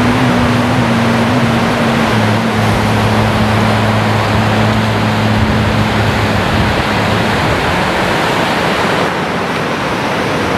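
Rough sea surf breaking on a stony shore, a steady rushing noise. Under it, low droning tones that slowly step lower and fade out about seven seconds in.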